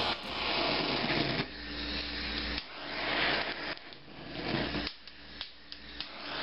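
Handheld gas torch hissing as its flame plays over poblano peppers, the hiss surging and falling away several times, with a few sharp crackles. The uneven flame is put down to liquid fuel at the head of the nozzle.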